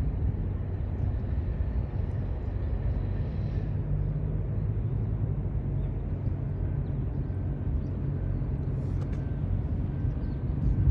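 Steady low rumble of a car ferry under way, its engine drone mixed with wind noise.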